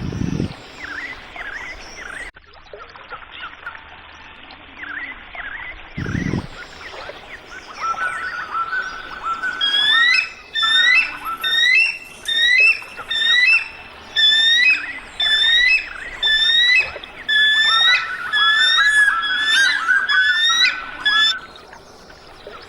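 Birds calling: scattered chirps at first, then about ten seconds in a loud series of repeated whistled notes that dip and rise, about one and a half a second, which stops shortly before the end. A low thump comes near the start and another about six seconds in.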